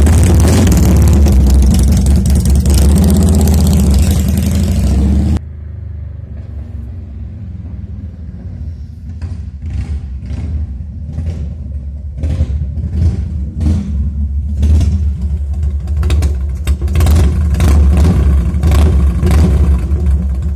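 Harley-Davidson Evolution V-twin running loud through Vance & Hines Big Shots Long pipes as the Heritage Softail pulls away. About five seconds in the sound drops off suddenly to a distant engine note. From about nine seconds on, uneven throttle blips grow steadily louder as the bike comes back.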